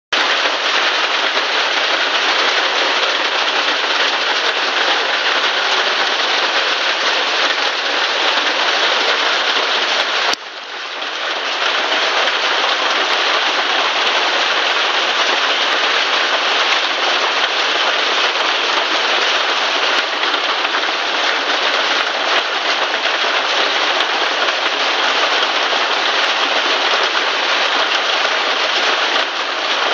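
Heavy downpour with hail beating down on a garden: a dense, steady hiss. It drops suddenly about ten seconds in and swells back within a second or so.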